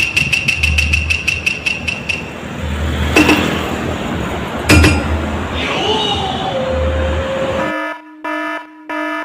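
A vehicle horn tooting in short repeated blasts of one steady pitch, about three a second, in the last second and a half, after a stretch of rapid, even ticking with low thuds.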